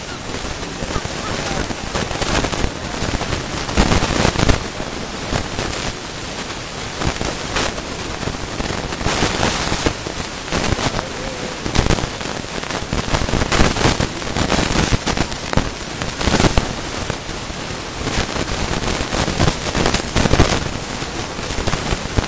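Fireworks going off: sharp bangs at irregular intervals of one to three seconds over a continuous hiss.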